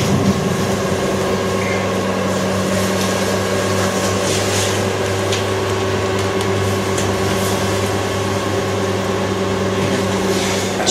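Electric handheld chiropractic adjusting instrument buzzing steadily as it is run over the atlas at the top of the neck.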